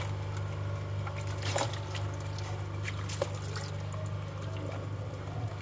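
Hot water trickling and dripping onto solid ice packed around a fridge's evaporator fan, melting it in a manual defrost, with a few short splashes over a steady low hum.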